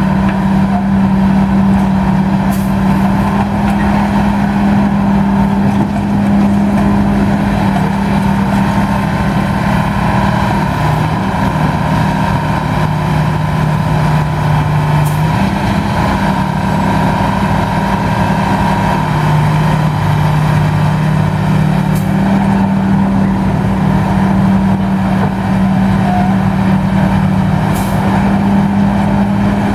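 Bucyrus-Erie 30-B pull shovel running steadily while it digs. Its engine note drops lower for a few seconds twice, about a third and two thirds of the way through, with a few faint short clicks over the top.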